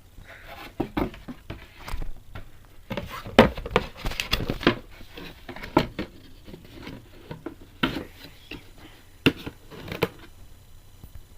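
Small parts of a Canon EF 35-80mm zoom lens being handled and worked apart: irregular clicks, taps and light rustling in clusters, the sharpest knocks a little over three seconds in and again near the end.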